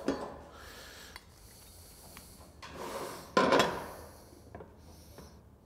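A speed square and marker rubbing and scraping on folded sheet-metal gable trim as layout lines are marked. There are several short scrapes, the loudest a pair about three seconds in.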